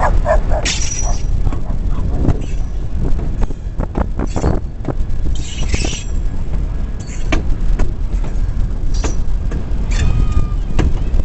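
EMD GP9 diesel locomotive under way, heard from on board: a steady low rumble with wind on the microphone, and irregular knocks and clanks from the running gear and track.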